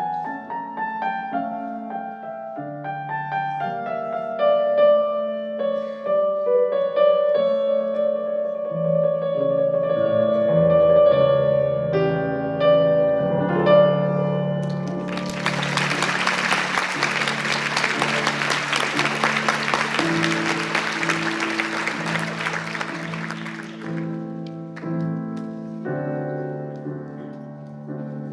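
Piano music playing. About halfway through, audience applause breaks out over it and lasts roughly nine seconds before dying away.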